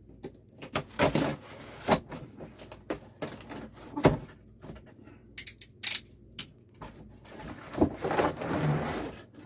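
Hands opening a cut cardboard shipping box and handling what is inside: irregular knocks, scrapes and rustling, with a longer rustle near the end.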